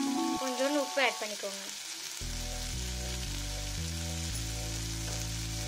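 Chopped onion, tomato, green chillies and cashews sizzling as they fry in butter in a pan, a steady hiss. Background music plays along with it, a melodic line at first and then low bass notes stepping every half second or so from about two seconds in.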